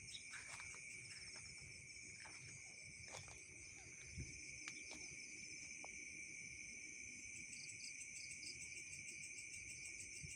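Night insect chorus of crickets and other insects calling without a break: a steady high trill, with faster pulsing trills higher still. A few faint clicks come in the first half.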